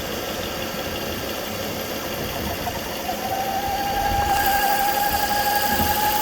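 2009 Volvo S40 2.4i's B5244S7 inline five-cylinder engine idling. About three seconds in, a steady high whine sets in and the sound grows louder. The owner suspects a bad PCV oil trap, with about 4 inHg of vacuum on the crankcase.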